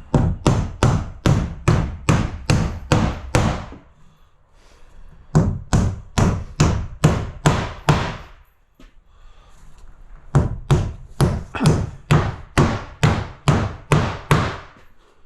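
Hammer blows, likely fixing cement sheet to the wall frame: three runs of sharp, evenly spaced strikes, about two to three a second, with two short pauses between the runs.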